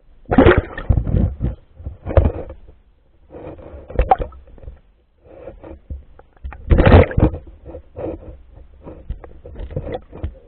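Water splashing and sloshing in irregular bursts, loudest about half a second in and again around seven seconds in.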